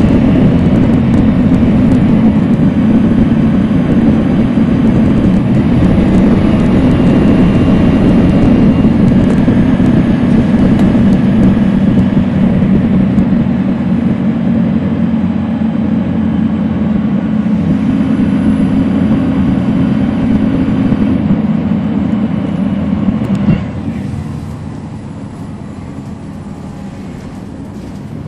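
Cummins ISL9 diesel engine of a 2010 NABI 40-SFW transit bus running under way, heard from the back of the bus cabin as a loud steady low drone. About 23 seconds in there is a sharp click and the noise drops to a quieter steady hum.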